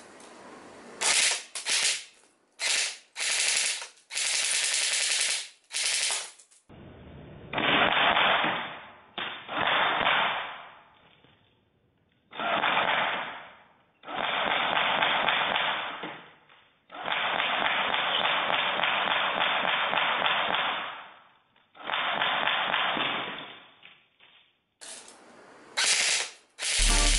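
Airsoft gun firing on full auto in bursts: several short bursts at first, then longer runs of a few seconds each that sound duller.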